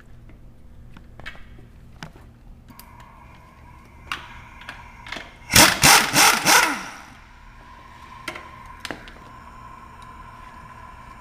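Pneumatic impact wrench hammering the 17 mm nut off the top of a strut assembly in one rattling burst of about a second, about five and a half seconds in.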